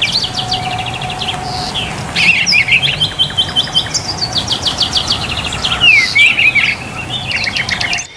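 Many small caged songbirds chirping and twittering at once, in overlapping quick runs of repeated chirps and trills. It cuts off abruptly near the end.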